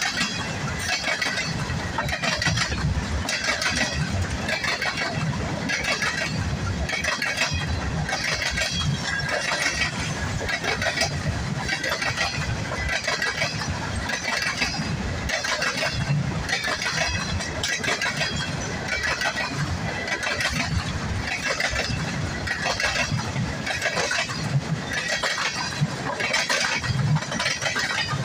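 Freight train of loaded stone hopper cars rolling past close by: a steady rumble with the wheels clacking and clinking in an even rhythm, roughly three clacks every two seconds.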